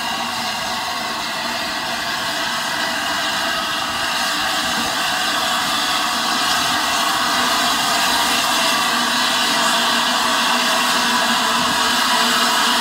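Standing steam locomotive Flying Scotsman, an LNER A3 Pacific, hissing steam steadily, growing slowly louder.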